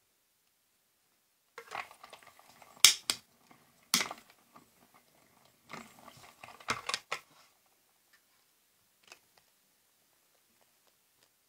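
Die-cutting handling sounds: plastic cutting plates and a die being stacked and a small hand-held die-cutting machine pressed over them, in two bursts of rustling with several sharp plastic clacks and one faint click afterwards.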